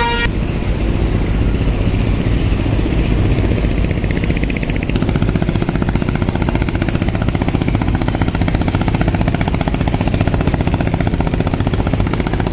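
Boat's diesel engine running steadily with a rapid low throbbing, which grows more distinct about five seconds in.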